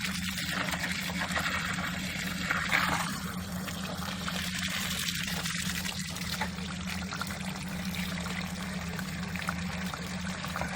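Water pouring steadily into the top of an old Lister D engine radiator and trickling through its core, a test of whether the once-blocked radiator now flows, with dirt washing out.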